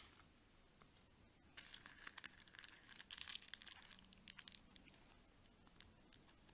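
Faint crinkling and tearing of a wrapper being opened: a dense run of sharp crackles lasting about three seconds, then two single crackles near the end.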